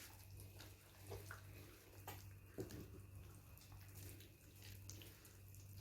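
Faint liquid sounds and a few light clicks as cooking oil is poured and worked into the butter, sugar and egg mixture in a bowl, over a steady low electrical hum.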